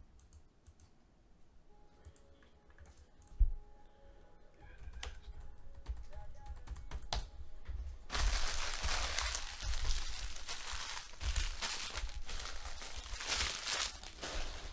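Foil wrappers of trading-card packs crinkling as the packs are handled, in a dense run from about eight seconds in. A single thump comes about three seconds in.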